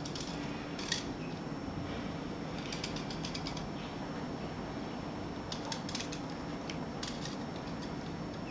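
Small clusters of faint light clicks and ticks from handling a die-cast toy pile driver's lever and hammer mechanism, over a steady low hum.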